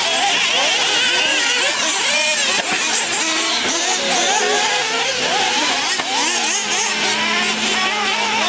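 Several nitro RC buggy engines whining together, their pitches rising and falling constantly as the buggies accelerate and back off around the track.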